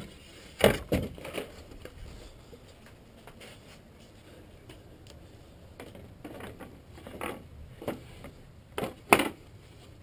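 Flat-pack bed shelf panels being handled and slid out of a car trunk: scattered knocks and scrapes, the loudest a pair about nine seconds in.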